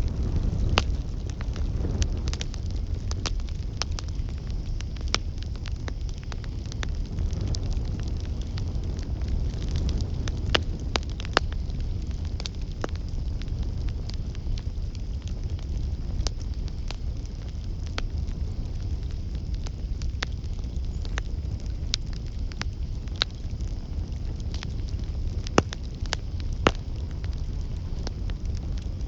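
Campfire burning: a steady low rumble and hiss of flames with frequent sharp crackles and pops at irregular intervals.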